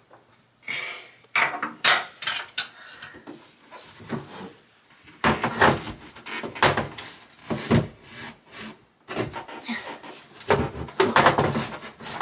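Irregular knocks, clunks and scraping of hard objects, wood among them, being handled and fitted by hand.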